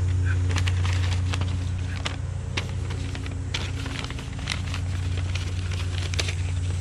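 Paper target sheet crinkling and crackling in the hands as it is handled and folded, with many short sharp crackles, over a steady low machine hum.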